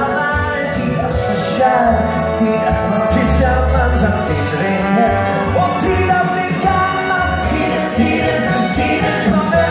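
Live musical-theatre song: a band playing with singing over a steady beat.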